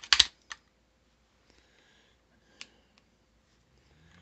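Metal clicks and clacks of a SIG Mosquito .22 pistol's slide and small parts being worked by hand on the frame during reassembly, while the slide is stuck short of going forward. A sharp cluster of clicks comes at the start, then a single click about half a second in and another about two and a half seconds in.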